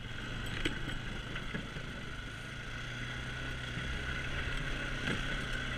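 ATV engine running steadily at low speed over a rough dirt trail, with a couple of brief knocks, one under a second in and one near the end.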